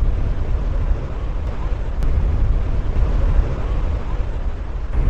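Muddy flash-flood water rushing past: a loud, steady low rumble.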